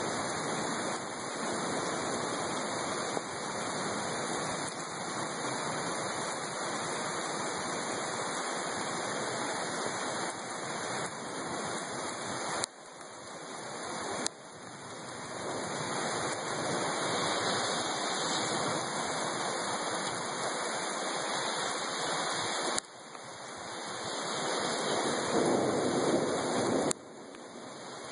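Heavy rain pouring steadily in a storm. The level drops suddenly three times and swells back over a second or two.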